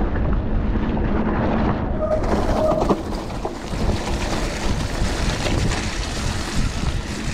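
Wind buffeting the microphone while riding a mountain bike, a steady low rumble with the rolling hiss and rattle of the bike's tyres on the trail growing brighter from about two seconds in.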